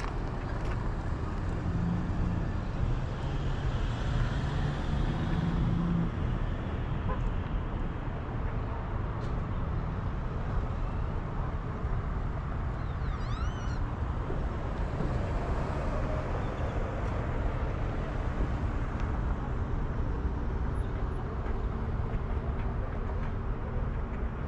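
Steady road and wind rumble from travelling at speed behind a towing vehicle, with a low engine hum that swells for a few seconds early on. A brief chirping squeak comes about 13 seconds in.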